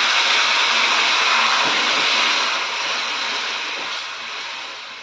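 Hot water poured into a pan of oil-fried, spice-coated cauliflower and potatoes, hissing and sizzling loudly on contact with the hot masala. The sizzle holds for about two seconds, then dies steadily away as the water settles in the pan.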